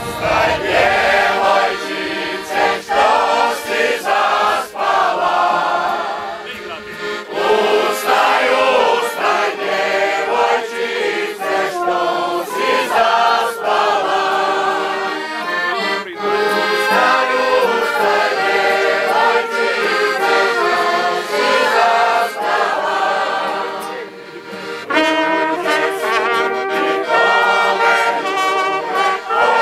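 Folk music played on accordion and brass, with a group of people singing along.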